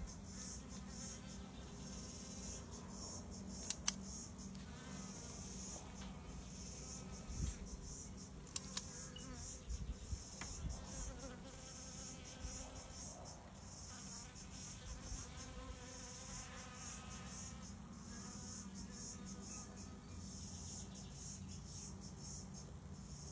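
Honey bees buzzing faintly as they fly in and out of a water dish, with a high pulsing sound that repeats every second or two and a couple of sharp clicks.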